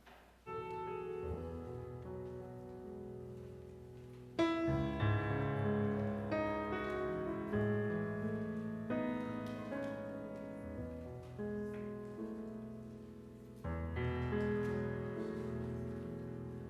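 Instrumental piano introduction of a recorded worship song: slow, sustained chords, a new one struck about every four seconds.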